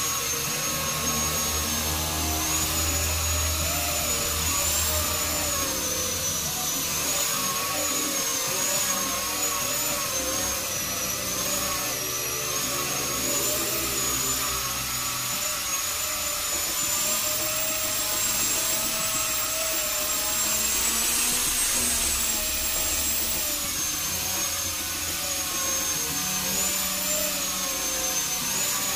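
Electric angle grinder fitted with a sanding disc, running steadily while it sands the flat top of a teak wood cabinet. Its high whine wavers slightly in pitch as the disc is pressed into and moved across the wood.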